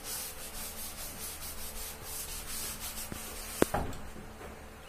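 Chalk being wiped off a blackboard with a duster in quick back-and-forth scrubbing strokes, which stop about three and a half seconds in. Right after them comes a single sharp knock.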